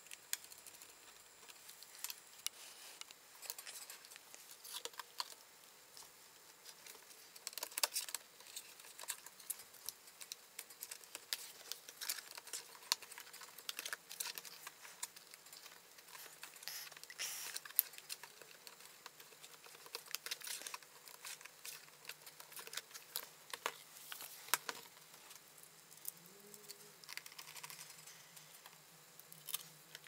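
Faint, scattered clicks, taps and light scrapes of a laptop being reassembled by hand: plastic parts and the keyboard pressed into place and screws turned with a small screwdriver.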